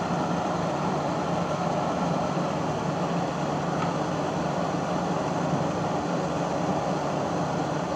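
Steady mechanical hum and hiss with no change and no distinct knocks or clicks.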